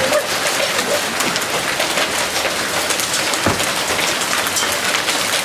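Hail and rain pelting down, a dense steady patter of countless small stones and drops striking the ground and nearby surfaces, with one heavier knock about three and a half seconds in.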